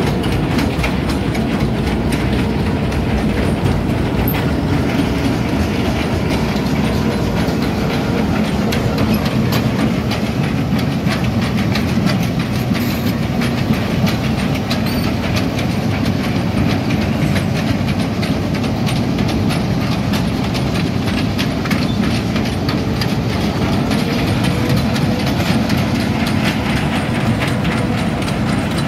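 Hitachi Zaxis 210F amphibious excavator travelling on its pontoon tracks: the diesel engine runs steadily under a dense, continuous clatter of the track chains and cleats.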